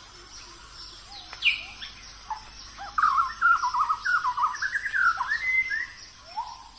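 Birds chirping and singing: a rapid warbling run of short notes starts about three seconds in, over a steady background of faint high chirps.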